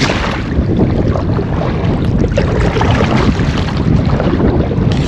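Wind buffeting the microphone over small waves slapping and splashing against a small boat's hull, a dense, continuous rumble that rises and falls unevenly.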